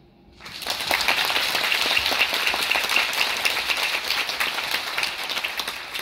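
Audience applauding: many hands clapping together, starting about half a second in, holding steady, and beginning to thin out near the end.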